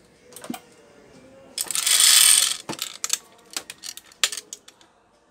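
A loud hiss lasting about a second, about two seconds in, with small sharp clicks and taps of tools and parts being handled at the repair bench before and after it.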